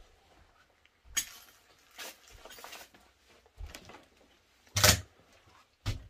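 Footsteps crunching and clinking over a floor littered with paper, cardboard and bottles: about five separate steps, roughly one a second, with the loudest a little before the end.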